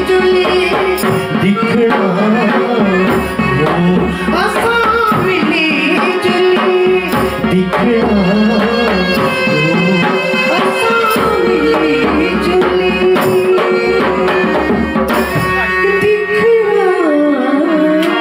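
Himachali folk song: a solo voice sings a melody with many slides in pitch into a microphone, over a harmonium's held notes and a hand drum keeping the rhythm.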